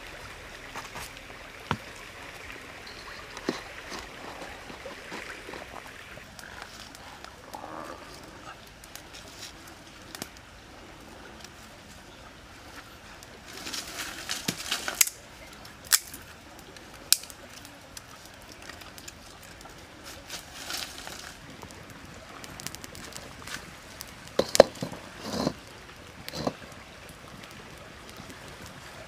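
Handling sounds of cooking at an outdoor wood fire: rustling, with scattered sharp clicks and knocks, the loudest a cluster near the end.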